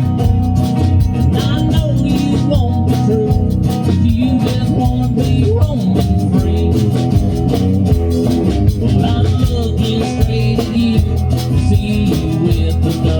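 Live country band playing a song with acoustic and lead guitars over a drum kit, heard from off to the side of the band.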